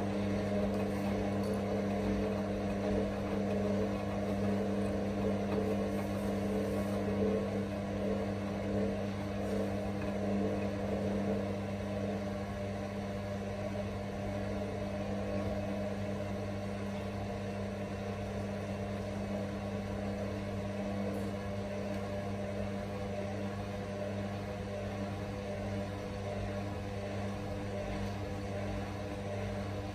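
Hotpoint WM63P front-loading washing machine running, its motor turning the drum with a steady hum. It gets slightly quieter after about twelve seconds.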